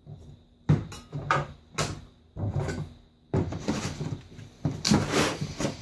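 Several sharp knocks, then a run of clattering and rustling: a plastic five-gallon bucket's screw-on Gamma Seal lid being handled and hand tools rummaged inside it.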